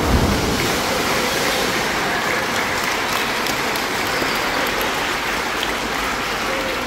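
Dolphins landing in the pool with a heavy splash right at the start, then steady applause from the audience.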